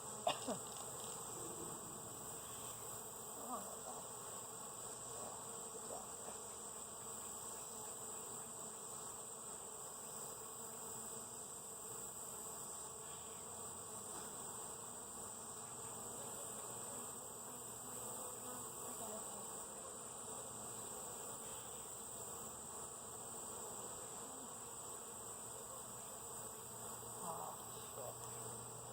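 A honeybee colony buzzing steadily at the hive, with a brief sharp click about a third of a second in and a fainter one a few seconds later.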